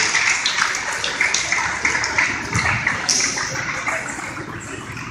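Gymnasium crowd cheering and clapping at the end of a basketball game, with scattered sharp claps, the noise gradually dying down.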